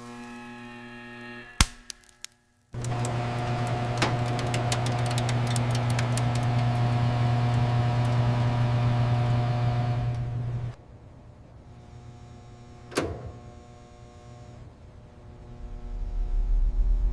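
Microwave oven running: a loud steady hum with crackling clicks through it, starting about three seconds in after a sharp click and cutting off about eleven seconds in. A single sharp sound follows a couple of seconds later.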